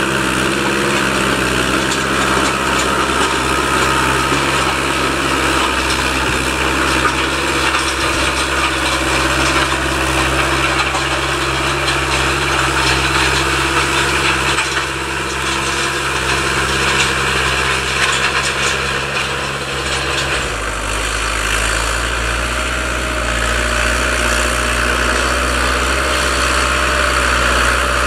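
Fiatagri 80-90 tractor's diesel engine running steadily under load while pulling a five-tine Alpego KD5 subsoiler through the soil. About twenty seconds in, the engine note changes abruptly to a deeper, heavier rumble.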